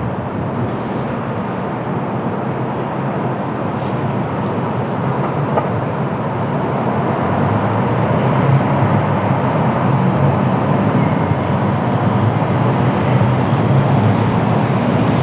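Jet airliner rumbling on approach to land, its engine noise growing steadily louder.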